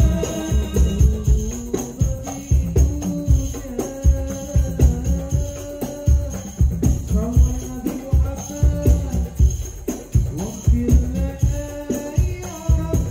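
Hadrah ensemble playing through a sound system: men's voices singing a melody that bends and slides in pitch into microphones, over the steady beat of rebana frame drums.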